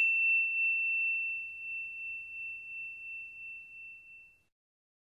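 A single high, clear chime tone ringing out and slowly fading away, gone about four seconds in.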